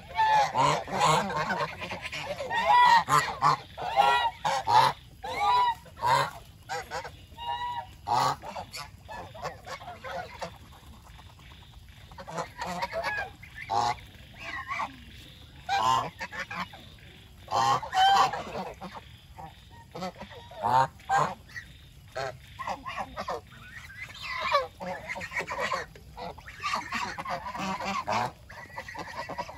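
A flock of domestic geese honking: many short calls, overlapping and repeating. They come thickest in the first few seconds and again near the end, with sparser stretches between.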